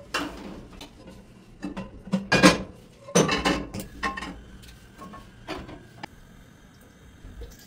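Cookware and utensils clattering and clinking: a string of separate knocks and clinks, loudest around the middle, as a pan and utensils are handled.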